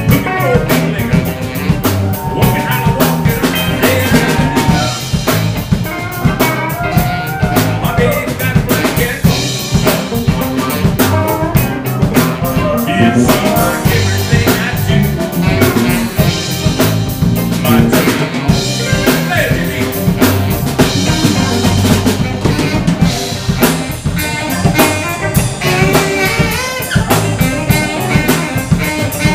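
Live blues band playing: drum kit, electric guitars and bass, and a saxophone, all in a steady groove.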